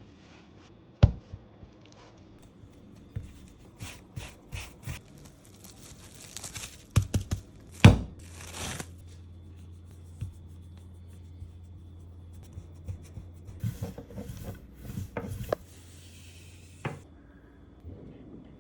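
Food-preparation handling sounds: a string of sharp knocks and clatters with rustling and crinkling in between. The loudest knocks come about one second and about eight seconds in. A steady low hum runs through the middle and stops about fifteen seconds in.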